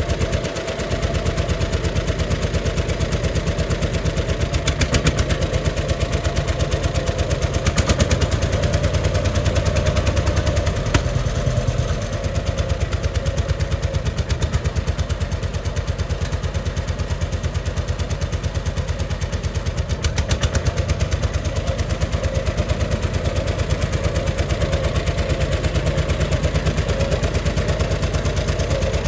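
John Deere 50 tractor's two-cylinder engine running, its exhaust giving the quick, even popping beat of a 'Johnny Popper', as the tractor is driven.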